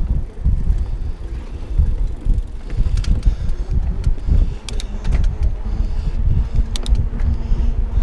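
Wind buffeting a body-worn action camera's microphone while riding a mountain bike on a gravel rail trail: a steady, fluttering low rumble with tyre noise, and a few sharp clicks from the bike.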